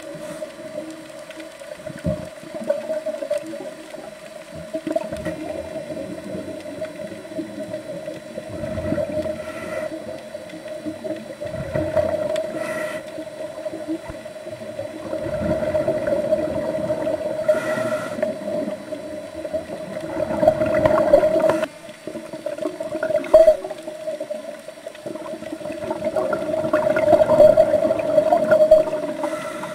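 Underwater sound on a reef dive: a steady droning hum with irregular swells of muffled water noise and a few short hisses of bubbles.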